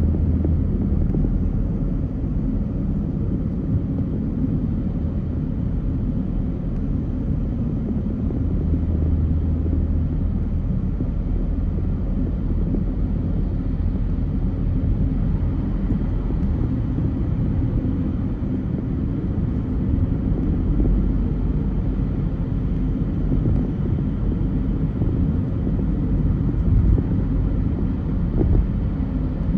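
Car driving in traffic: a steady low rumble of engine and road noise, with two brief louder knocks near the end.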